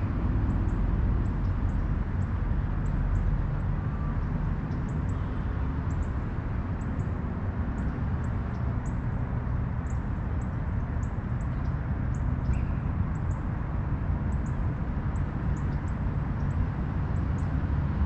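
Outdoor ambience: a steady low rumble with faint, very high bird chirps repeating every half second or so.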